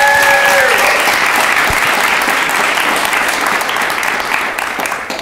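Audience applauding, with one voice cheering in a long held call at the start; the applause fades away near the end.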